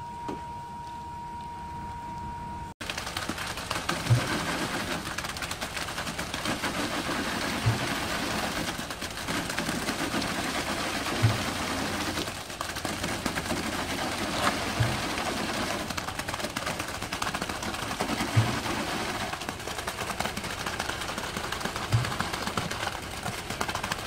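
Concrete pump truck running while it pumps concrete through the boom hose: a dense mechanical noise with a heavy knock about every three and a half seconds as the pump cycles its strokes. The first few seconds are quieter, with a faint steady high tone.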